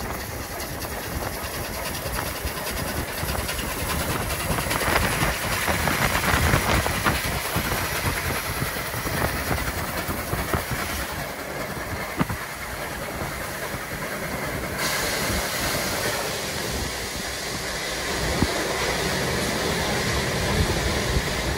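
A train running along the rails, a steady rumbling rush that grows loudest about five to seven seconds in.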